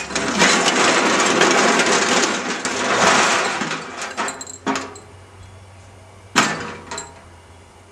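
A long crash with clattering, loudest over the first few seconds and then dying away, followed by a sharp single knock about six seconds in and a smaller one just after.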